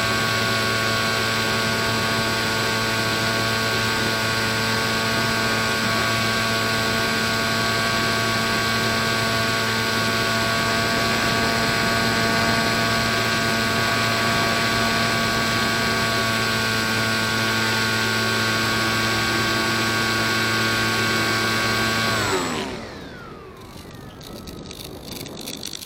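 Electric motor and 7x5 propeller of an RC Factory Step One model plane running at steady throttle, heard from on board as a steady whine. Near the end the throttle is cut and the whine falls away quickly, leaving only faint clicks.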